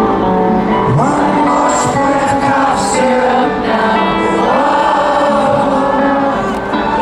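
Live rock band playing the closing bars of a song, with long held sung notes over the band.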